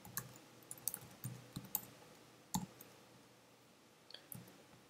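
Computer keyboard typing: irregular, scattered key clicks with pauses between them, the loudest about two and a half seconds in.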